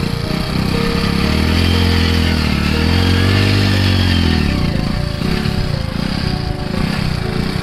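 Motorcycle engine running and revved up and back down twice in a row, about a second in and again around three seconds in, then settling back to a rough idle.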